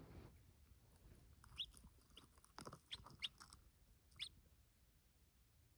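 Newly hatching chicken chick, still partly in its shell, giving about five faint, short, high peeps, each falling in pitch, in the middle of the stretch, with a little faint rustling.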